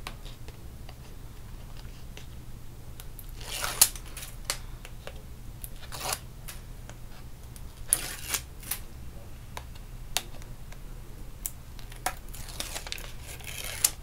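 Backing liner being peeled off double-sided adhesive tape stuck to card, in several short ripping pulls, with paper and card rustling and small taps between them.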